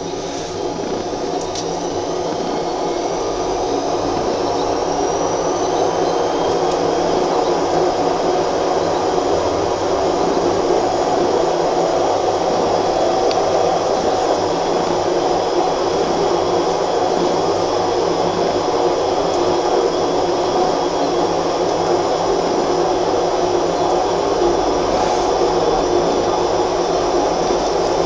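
A motor running steadily with a droning whine. It swells over the first few seconds, with a faint high whine rising in pitch, then holds at an even level.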